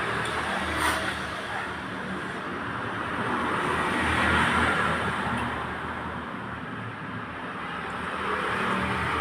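Road traffic noise, swelling and fading as vehicles pass, with a short sharp click about a second in.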